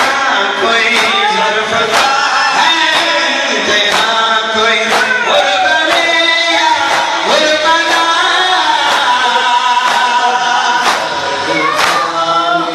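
A male noha reciter sings a Muharram lament into a microphone, with a group of men chanting along. Under the voices runs a steady beat of sharp strikes, a little over one a second: the mourners' chest-beating (matam).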